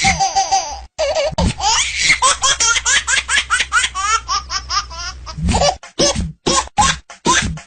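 Baby laughing in rapid bursts of high-pitched giggles, broken by several abrupt cut-offs where the recording is chopped and spliced.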